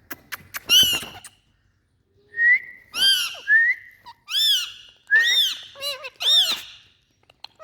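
A pet parrot giving a run of about seven short, high-pitched arching calls in quick succession, with a few sharp clicks just before the first one.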